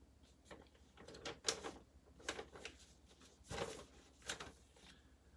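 Hands handling computer case parts: a string of faint clicks, knocks and short scrapes, the loudest about a second and a half in and again around three and a half seconds in.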